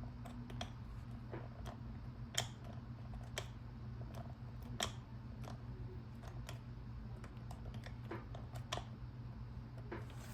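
Number wheels of a Master Lock four-dial combination lock clicking as they are turned by hand, with tension held on the lock's inner rod while feeling for the correct digit. Scattered single clicks at irregular intervals, about a dozen in all.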